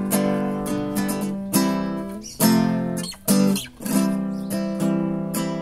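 Acoustic guitar strummed in chords, about one strum a second, stopping briefly twice near the middle.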